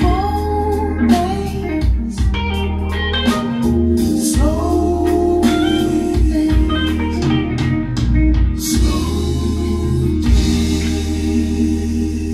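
Blues-rock recording played through Canton Reference 1.2 DC floorstanding speakers and a Canton subwoofer: a bending electric guitar lead over organ and a steady deep bass line. From about nine seconds in it settles into a long ringing final chord with a cymbal wash.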